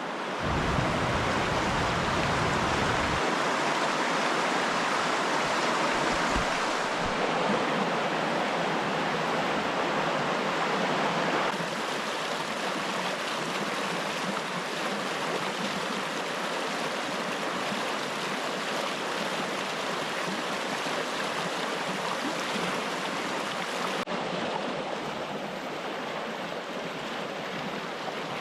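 River water flowing steadily, an even rush that drops a little in level about a third of the way in. A low rumble sits under it for the first few seconds.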